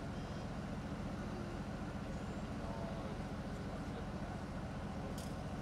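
Heavy military diesel engine idling: a steady low rumble. A short click comes near the end.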